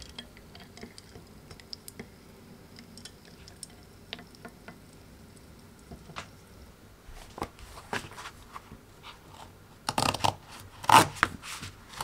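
A quiet stretch of faint scattered clicks, then from about seven seconds in, paper sheets rustling and being rubbed flat on a wooden table, loudest near the end.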